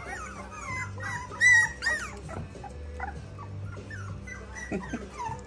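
A litter of 4.5-week-old bulldogge puppies whimpering and squealing. Many short, high, arching cries overlap in the first two seconds, with one louder squeal about one and a half seconds in, then scattered yips.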